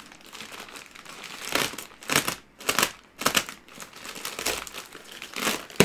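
Black plastic bin bag crinkling and rustling in irregular bursts as it is pulled at and cut open with a box cutter.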